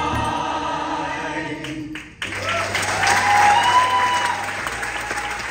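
Stage cast singing together in chorus, holding a final note. About two seconds in it cuts to audience applause mixed with cheers.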